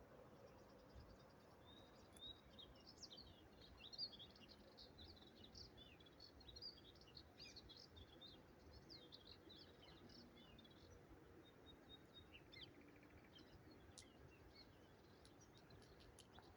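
Faint songbirds chirping and twittering, busiest in the first half and thinning out after, over a low steady background hiss.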